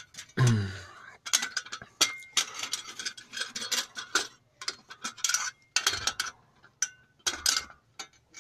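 Irregular metallic clicks and knocks from the VAZ 2106's front steering linkage being rocked by hand, with a short falling creak about half a second in; the knocking comes from play in worn, loose steering joints.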